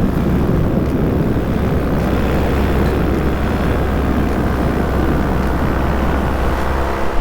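Paramotor's two-stroke engine and propeller running at steady throttle in flight, with wind rushing over the microphone.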